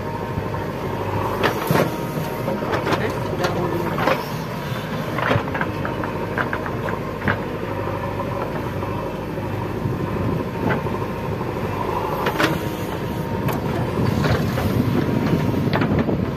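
JCB 3DX backhoe loader's diesel engine running steadily as the backhoe digs, with a scatter of sharp clanks and knocks from the bucket and soil, thickest in the first several seconds and again about three-quarters of the way through.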